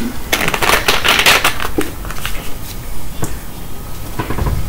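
A drink bottle being handled, with a quick run of crackling and clicking. A dull knock comes near the end as the bottle is set down.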